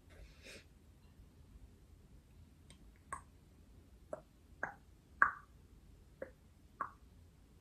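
Soft breath out, then six faint mouth pops made with pursed lips, spaced roughly half a second to a second apart.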